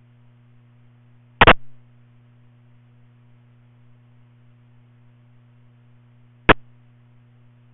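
Radio scanner between transmissions: a steady low hum, broken twice by brief, sharp bursts of static. The first comes about a second and a half in and trails off. The second, shorter one comes near the end.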